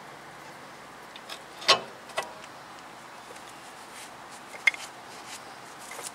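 Metal knocks as a car's rear brake caliper is swung down and seated over the new pads: one sharp knock a little under two seconds in, a smaller one just after, and a light click a few seconds later.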